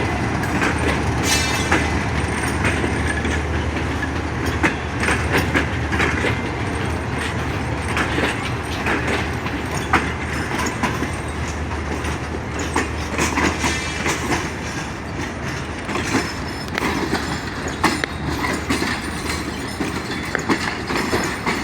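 Passenger express coaches rolling into the station platform, their wheels clicking over the rail joints over a steady low rumble, with brief high squeals from wheels or brakes about a second in and again around the middle.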